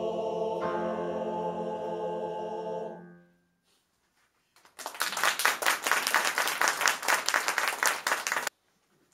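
Men's choir singing a held final chord that fades out about three seconds in. After a second of silence the audience applauds, and the applause cuts off suddenly near the end.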